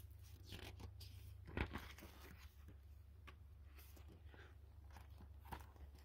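A page of a hardcover picture book being turned by hand: faint paper rustling and crinkling, loudest about one and a half seconds in, over a low steady hum.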